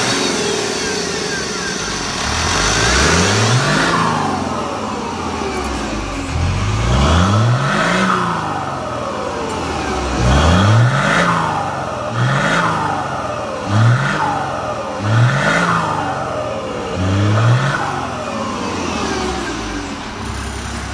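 Chevrolet Silverado's six-cylinder MWM turbo-diesel revved through a freshly made 'pente' exhaust, in a string of throttle blips, the engine pitch climbing and falling each time. The blips come slower at first and then about once a second from the middle on.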